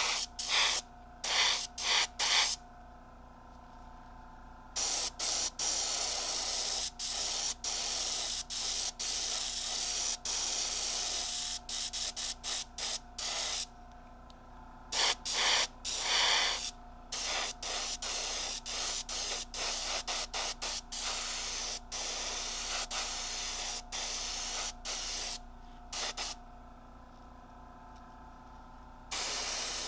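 Gravity-feed airbrush spraying paint, its air hiss coming in many short bursts and a few longer passes several seconds long, stopping and starting throughout.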